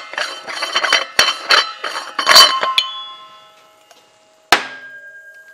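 Metal valve-protection cap being unscrewed from a welding gas cylinder: rapid metallic clinking and scraping of the cap on its threads, with ringing that dies away after about three seconds. A single ringing metal clank comes about four and a half seconds in.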